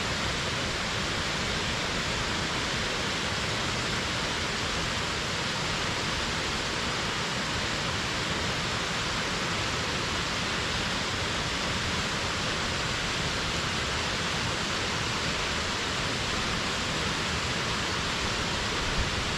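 Waterfall: a steady, unbroken rush of falling water, with a brief low thump near the end.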